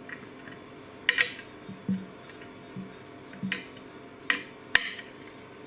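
Scattered sharp clicks and light knocks, seven or so, roughly a second apart, the sharpest near the end: the metal clamping plate and screws of a homemade sandpaper-clamping jig being handled and snugged down.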